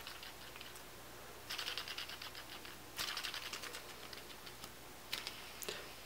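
3D-printed brass-fill cog fidget spinner on skate bearings, handled and spun in the fingers: faint rapid clicking in two spells, starting about a second and a half in and again at about three seconds, then a couple of single clicks near the end.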